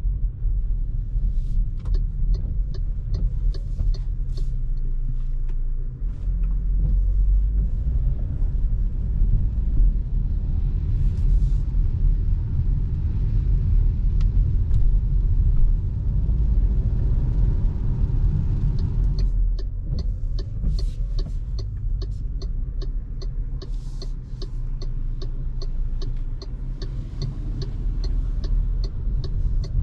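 Cabin sound of a 2025 MG HS driving on wet city streets: a steady low rumble of the road and engine inside the car. A regular light ticking, about three a second, comes in briefly near the start and again through the second half.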